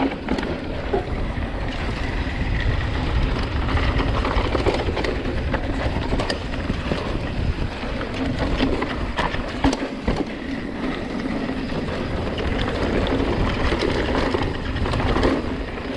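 Mountain bike riding fast down a loose, dusty dirt trail: a steady rush of wind and tyre noise, with frequent clicks and rattles from the bike over the bumps.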